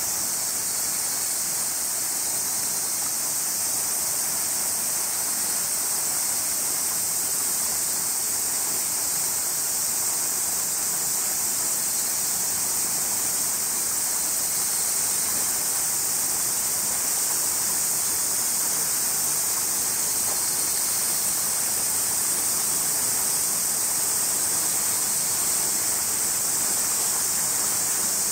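Summer cicada chorus: a steady, unbroken high sizzle, with an even lower hiss beneath it.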